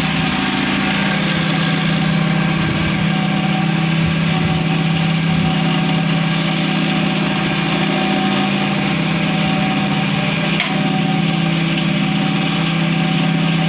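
Gas-heated cotton candy machine running with a steady, unbroken hum as its head spins the melted sugar.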